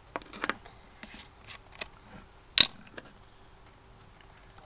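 Hands handling a doll's clothes close to the microphone: scattered rustles and light clicks, with one sharp knock about two and a half seconds in.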